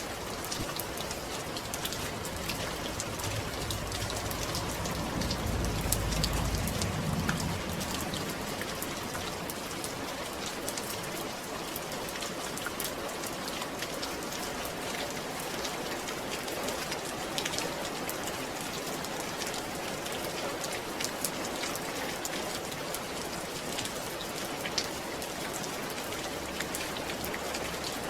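Steady rain falling, a continuous hiss with many small drops pattering. A low rumble swells and fades about four to seven seconds in.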